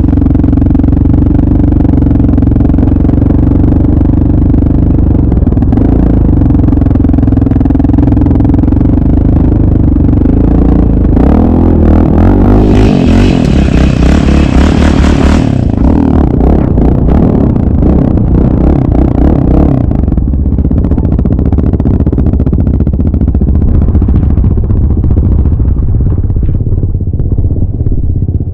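Single-cylinder four-stroke sport ATV engine running under way, heard from on board. It holds a steady note, then turns rougher and busier in the middle, with a loud hiss for about three seconds. It settles to a lower, steadier note for the last several seconds.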